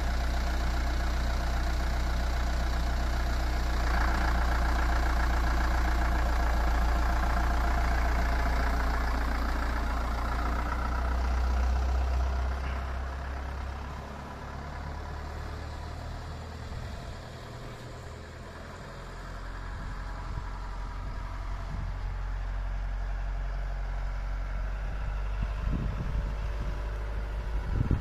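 Engine of a Toyota Coaster-based dual-mode vehicle running close by, with a strong steady low hum. About twelve seconds in it pulls away and fades. Its engine sound swells again later as it climbs onto the raised track section, with a couple of sharp knocks near the end.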